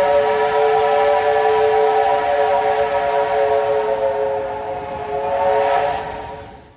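A steam locomotive whistle sounding one long chord of several notes over the hiss of escaping steam. It swells again near the end, then fades and breaks off.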